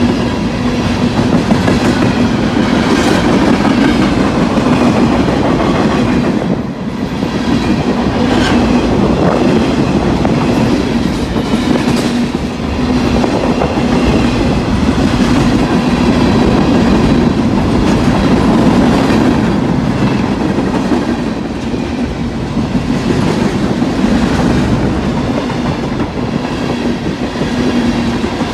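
Freight train cars rolling past, steel wheels clacking steadily over the rail joints with a continuous rumble.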